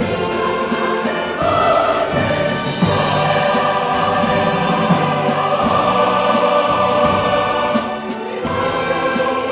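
A large combined church choir singing a sacred anthem with instrumental accompaniment, in long held chords.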